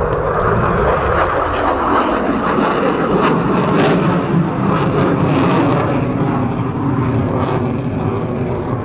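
Swiss Air Force F/A-18 Hornet's twin jet engines running loud during a fast display pass, the pitch falling near the start as it goes by, with brief crackles in the first half.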